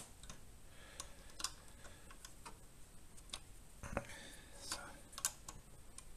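Irregular light clicks and taps, roughly one or two a second, of an Allen key and metal parts as the screws of a desk monitor arm are fixed.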